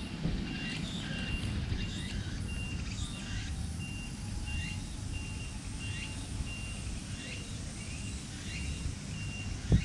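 A short, high beep repeating steadily about twice a second, with short falling chirps in between, over a low steady rumble.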